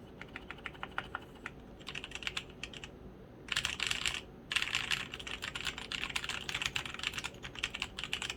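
Typing on a custom 60% mechanical keyboard with lubed Kailh Polia tactile switches and pudding keycaps, in an acrylic case with a copper plate and foam. Separate, unhurried keystrokes for about three seconds, then fast, dense typing with a brief pause about four seconds in.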